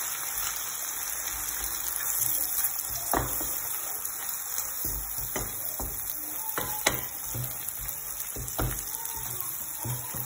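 Eggs, mushrooms and tomatoes sizzling in oil in a nonstick frying pan, with a wooden spatula scraping and knocking against the pan now and then as the omelette is stirred.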